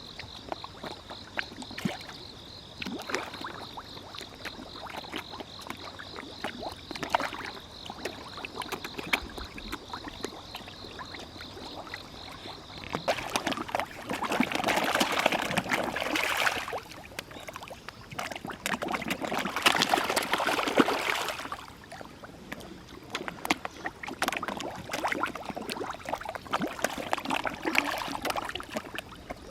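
A crowd of koi splashing and slurping at the pond surface as they feed, a dense patter of small splashes and gulps. It swells into heavier thrashing twice around the middle and again near the end.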